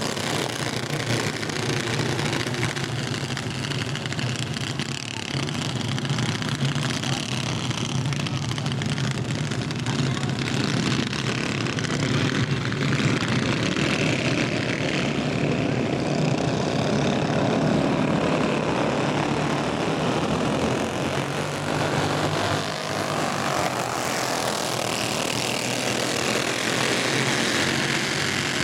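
Several racing kart engines buzzing together as the pack laps a dirt oval. The drone is continuous and swells a little in the middle as the karts come nearer.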